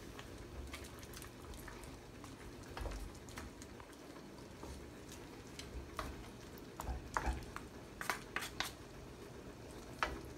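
Stew simmering in a wok while a wooden spatula and chopsticks stir it, with a steady low sizzle and a scatter of sharp taps of the utensils against the wok, most of them in the second half.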